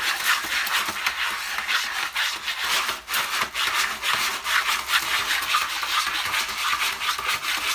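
A cat digging in a plastic litter tray of pellet litter: rapid, continuous scratching as its paws rake the pellets and scrape the bare bottom of the tray.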